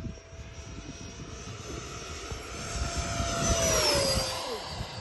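Electric ducted-fan whine of a Freewing radio-controlled model jet making a low pass. It grows louder and then drops in pitch as the jet goes by about four seconds in. Wind buffets the microphone.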